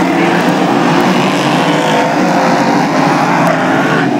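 Engines of a pack of small speedway race cars running hard together: a loud, steady drone with several pitches wavering up and down as the cars lap.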